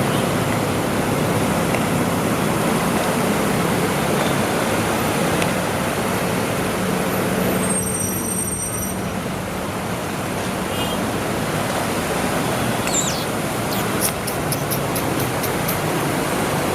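Road traffic: vehicle engines running under a continuous wash of road noise, with a few brief high-pitched squeaks and quick ticks in the second half.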